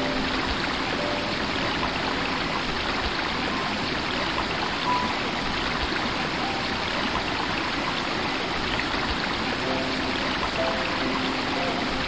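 Rocky stream rushing over and between boulders in small rapids: a steady, even rush of water.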